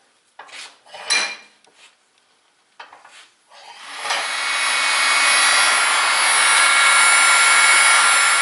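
A few hammer blows on a hammer-struck crimping tool, the loudest about a second in ringing metallically, crimping a copper lug onto a heavy battery cable. From about four seconds a heat gun blows steadily with a faint hum, shrinking heat-shrink tube over the crimped lug.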